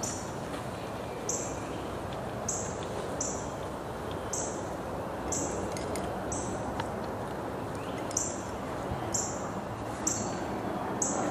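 A bird repeating a short, high chirp about once a second, over steady outdoor background noise.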